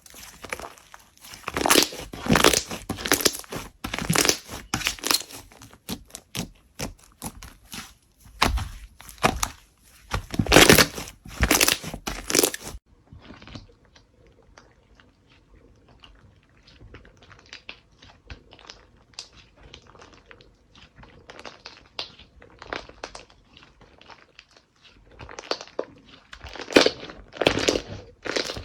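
Hands squeezing, stretching and poking slime, giving dense runs of crackling, popping clicks. The sound is loud at first, changes abruptly about a third of the way through to quieter, softer crackles, and grows louder again near the end.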